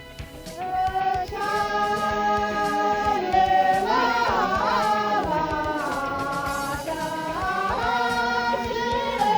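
A group of Tamang wedding singers singing an unaccompanied folk song together, holding long notes that slide from one pitch to the next.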